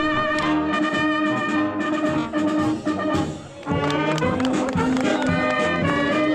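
Brass band playing sustained chords, with a short break about three seconds in before it starts again.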